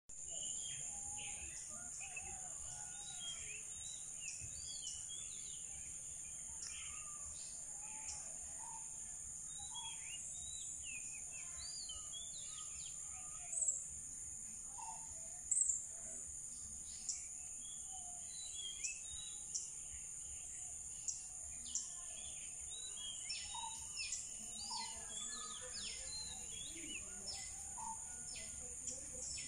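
Outdoor garden ambience: a steady high-pitched insect drone with many short bird chirps scattered through it, a few of them louder about halfway through.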